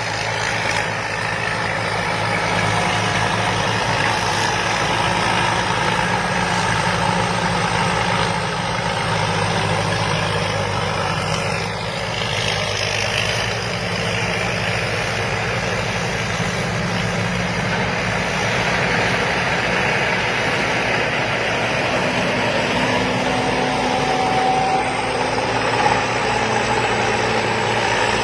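Combine harvester's diesel engine and harvesting machinery running steadily under load, with a short knock near the end.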